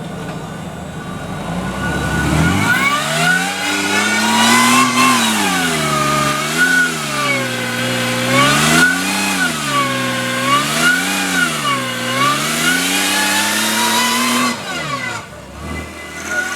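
Off-road 4x4's engine revving, its pitch climbing and then rising and falling over and over, about every second and a half, as the throttle is worked on an obstacle; it eases off near the end.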